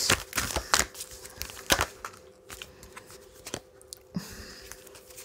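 Oracle cards being handled and laid down on a card spread: scattered light clicks and brief rustles of card stock. A faint steady hum runs underneath.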